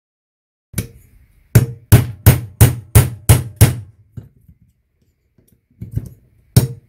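Hammer striking a steel drift to drive the old steering head bearing off the lower triple clamp of a BMW F800GS. There is one blow, then seven quick blows at about three a second, a pause, and one more blow near the end.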